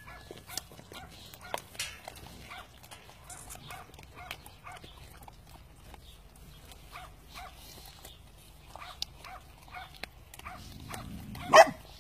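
Cane Corso puppies chewing and tearing at raw meat on the bone, a run of irregular wet smacks and crunching clicks. Near the end one puppy gives a single short, loud yelp.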